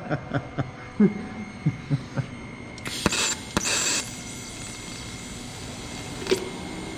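Two short welding tacks on steel tubing, each lasting under half a second, about three seconds in, after some low talk and chuckling. Steady shop hum runs underneath, with a single click near the end.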